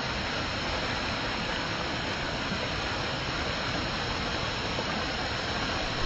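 Small waterfall cascading down rocks: a steady, even rush of falling water.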